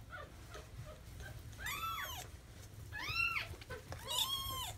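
A two-week-old kitten mewing three times, each cry high-pitched and rising then falling, while it is held and its infected eyes are wiped with a wet washcloth.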